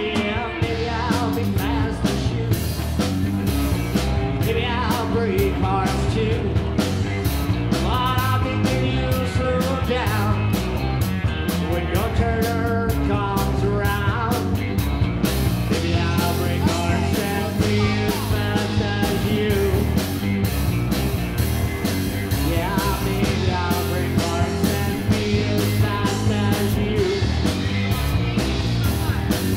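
Live rock band playing a song: a man singing over electric guitar, bass and a steady beat, through a PA.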